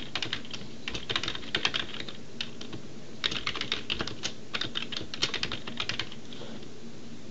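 Typing on a computer keyboard: two quick runs of key clicks with a short pause between them, stopping about six seconds in.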